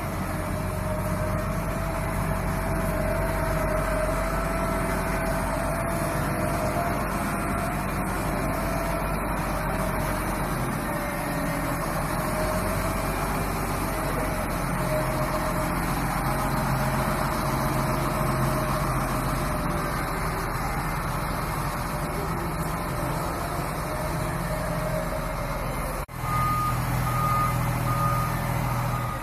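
Lonking wheel loader's diesel engine running steadily as the machine manoeuvres. Near the end, after a sudden cut, a reversing alarm beeps about twice a second over the engine.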